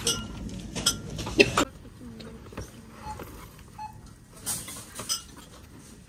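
Sharp clinks of hard items being handled: two about a second in and two more a little past halfway, each with a short ring.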